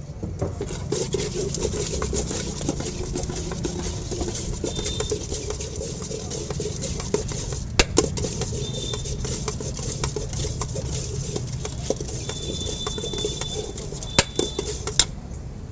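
Bhelpuri mixture of puffed rice and sev being tossed and mixed by hand in a steel bowl: a steady dry rustling and crunching, with a few sharp metallic clinks about halfway through and again near the end.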